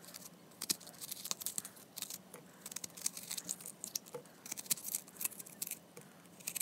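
Metal spoon scraping and scooping the seedy pulp out of a halved guava: a run of soft, irregular scrapes and clicks.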